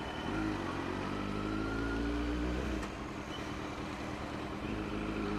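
Kawasaki Z900's inline-four engine at low revs, rising gently for a couple of seconds, then easing off about three seconds in and running on steadily.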